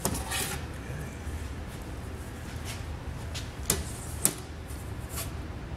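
A metal straightedge scraping and knocking on a sheet of aluminium as it is moved and set down, with two short sharp taps a little past the middle, and a few short marker strokes on the metal, over a steady low shop hum.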